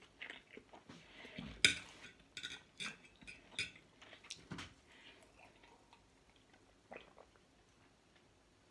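Metal fork clicking and scraping against a plate several times, the sharpest click about a second and a half in, then only a few faint sounds.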